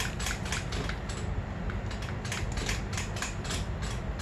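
Dirt bike front brake lever being pumped repeatedly, a quick run of clicks and creaks about three or four a second. The pumping pushes the caliper pistons back out against newly fitted brake pads.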